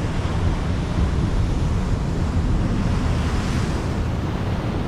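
Ocean surf breaking and washing up the beach, a steady rushing with a swell of wash about three seconds in, and wind blowing on the microphone.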